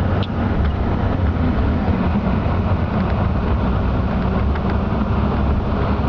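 Steady engine and road rumble heard from inside a moving vehicle, with a few faint clicks.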